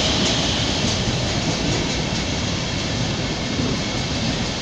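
A train rolling past on the rails: a steady rumble of wheels on track with some clatter, slowly getting quieter.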